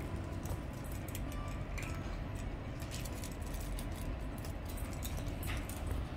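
Several cats eating dry food from stainless steel bowls: scattered small crunches and clinks of kibble against the metal, over a steady low hum.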